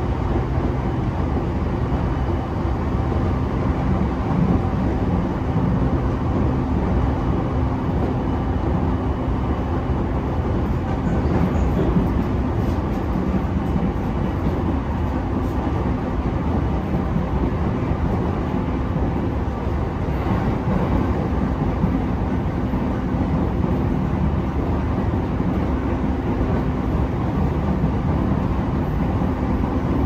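Steady low rumble and hum of a commuter train heard from inside the car, with a few steady low tones running through it.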